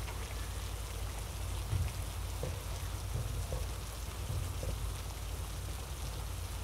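Coconut-milk gulai of fern leaves, shrimp and tofu simmering in a wok, a steady bubbling patter as it cooks until done. A few soft knocks come as a ladle stirs it.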